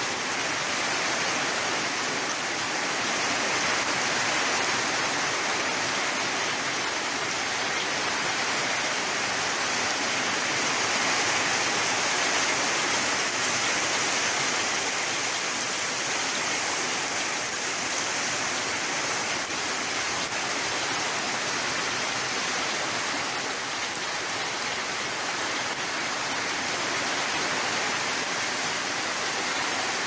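Steady rain falling on a grassy field and trees: a dense, even hiss that swells and eases a little.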